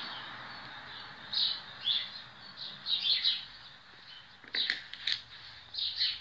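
Small birds chirping in short, irregular high notes, with a few light clicks about four and a half to five seconds in.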